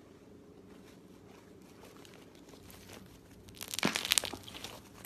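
Homemade slime squeezed and pinched between fingers. After a quiet start, there is a burst of crackling, popping squelches, with dense clicks of air pockets bursting, about three and a half seconds in.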